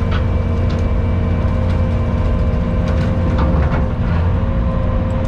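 Skid steer running a bush hog rotary cutter attachment while cutting brush and grass: a steady heavy engine and cutter drone with a steady whine over it, and scattered sharp ticks.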